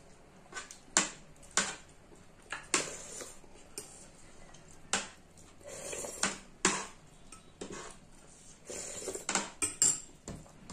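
Steel spoons clinking and scraping on plates and bowls at irregular intervals, mixed with close-up eating sounds, including a slurped sip of dal from a spoon about six seconds in.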